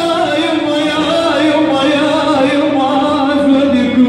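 A man singing into a microphone, drawing out long held notes with slow ornamental bends in pitch.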